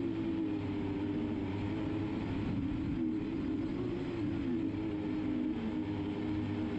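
Quadcopter drone motors and propellers whirring steadily, their pitch wavering up and down as the motors correct against gusty wind.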